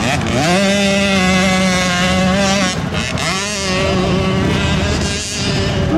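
Racing motorcycle engine revving high and holding its pitch on a hill climb run. It eases off and picks back up about halfway through, and again near the end.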